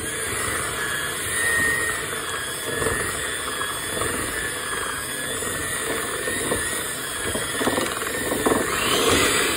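Electric hand mixer running steadily, its beaters churning thick brownie batter.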